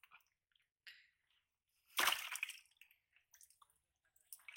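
Wet squelches and drips from a wet cast net being handled on mud, with one louder wet splash about two seconds in and small clicks after it.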